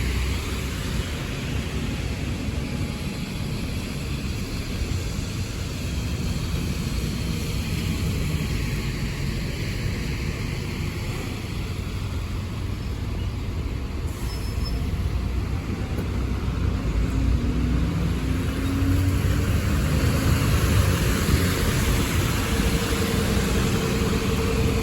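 Road traffic on a wet street: London buses and cars pass with engine rumble and tyre hiss, getting louder near the end.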